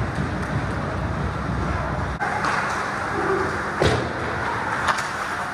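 Ice hockey rink during play: a steady rush of skates on ice and echoing arena noise, with a low rumble that drops away about two seconds in. Two sharp knocks of stick on puck come about a second apart past the middle.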